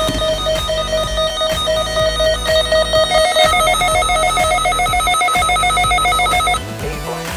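Electronic music built on a fast, repeated beeping melody like a phone ringtone, over a low steady beat. A second, higher beeping line joins about three seconds in, and the music drops away near the end.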